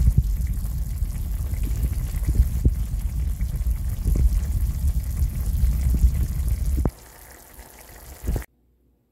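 Cubed steak bubbling and sizzling in its own released juices in a nonstick skillet, a dense steady bubbling with scattered pops over a low rumble. It drops away sharply about seven seconds in, with one brief burst before cutting off.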